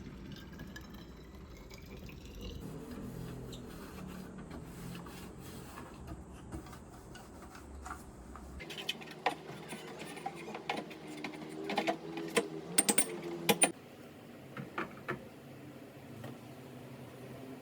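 Light clicks and clatter of small hard objects being handled, starting about halfway through and bunching into a quick run of sharp knocks before thinning out, over a faint steady hum.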